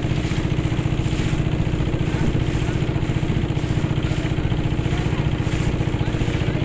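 A boat's motor engine running steadily at an even speed, with a fast, regular chugging.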